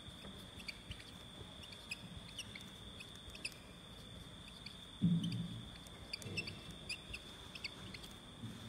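Marker pen squeaking in short, irregular strokes as it writes on a whiteboard, with a dull thump about five seconds in. A steady high whine sits underneath.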